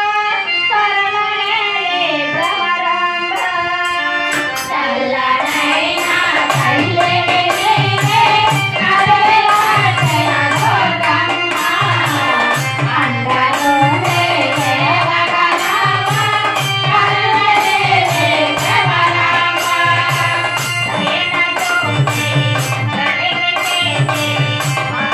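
A devotional bhajan: harmonium and voices singing together. Small hand cymbals tick a steady beat from about four seconds in, and a low drum beat joins a couple of seconds later.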